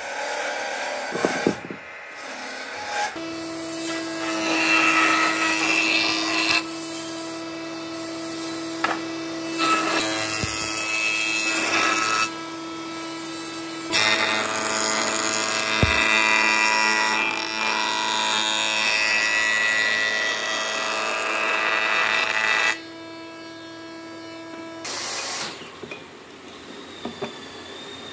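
Reclaimed wooden beams knocking together as they are handled, then woodworking machines, a jointer and a table saw, running with a steady motor hum and louder cutting noise while wood is fed through them.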